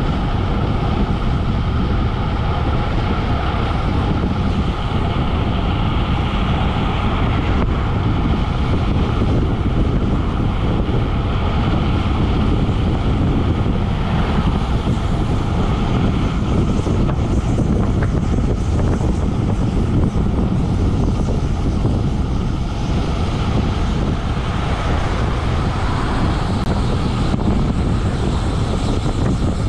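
Steady wind rush on an action camera's microphone, mixed with road-bike tyre noise, as the bike rolls along at around 16 to 20 mph.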